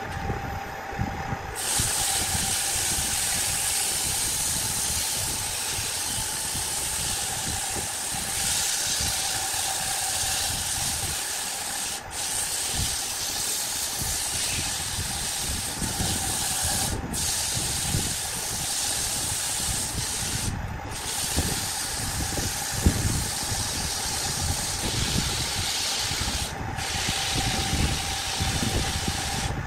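Electric wood lathe running with a steady hum while sandpaper held by a gloved hand is pressed against the spinning wooden workpiece, giving a steady sanding hiss. The hiss starts about a second and a half in and breaks off briefly a few times as the paper is lifted.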